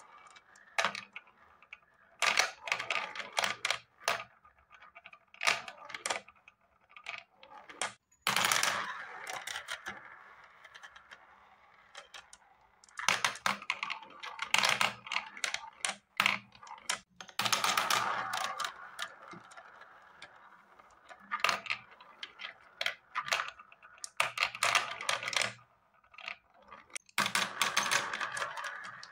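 Plastic balls rolling and clattering around a plastic spiral funnel track and dropping through its centre hole: bursts of rapid clicking and rattling over a steady rolling rush, with quieter gaps between the bursts.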